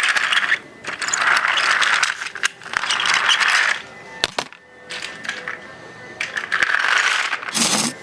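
Steam engine sound effects: three long bursts of rattling steam hiss, then a quieter stretch with a faint steady whistle tone and one more burst of hiss near the end.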